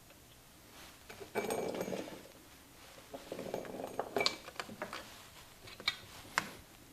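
Workbench handling noise: rustling and scraping with scattered clicks and a few short metallic clinks as engine parts and tools are picked up and set down.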